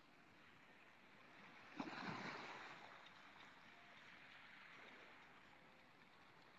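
Near silence, with one brief faint rush of noise, opening with a small knock, about two seconds in, then a faint steady hiss.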